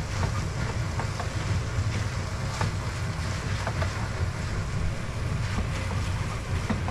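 Wooden spatula stirring and tossing stir-fried rice vermicelli in a frying pan, with scattered light clicks and scrapes against the pan, over a steady low rumble.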